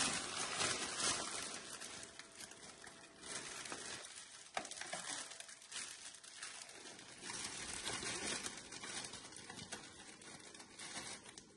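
Clear cellophane wrap crinkling and rustling as it is gathered and handled around a gift tray, irregular and uneven, quieter for a few seconds in the middle.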